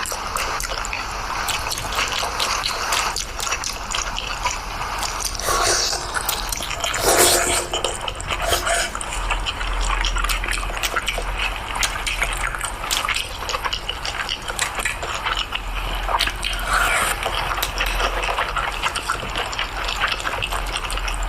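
Close-up chewing of chicken: a continuous stream of small, wet mouth clicks, with a slightly louder burst of chewing about seven seconds in.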